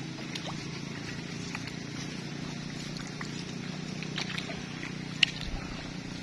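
A small engine running steadily in the background, a low even hum that stops shortly before the end, with scattered faint ticks over it.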